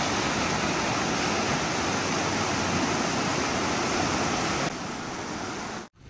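River rapids rushing over rocks: a steady, even rush of water. It drops a little in level about four and a half seconds in, then cuts off just before the end.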